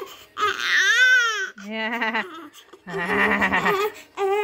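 Newborn baby crying in several separate wails, the first rising and then falling in pitch.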